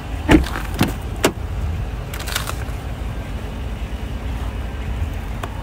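Pickup truck's rear door being unlatched and swung open: three sharp clicks and knocks from the handle and latch in the first second or so, over a steady low rumble.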